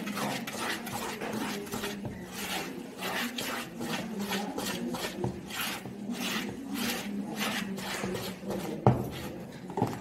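Wire whisk beating thick cake batter by hand in a plastic mixing bowl: rhythmic scraping and sloshing strokes, about two a second. There is a sharp knock about nine seconds in.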